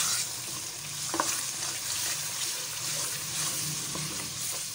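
A wooden spatula stirring thick ground spinach paste into tomato masala that is sizzling as it fries in an aluminium pot. There is a light knock about a second in.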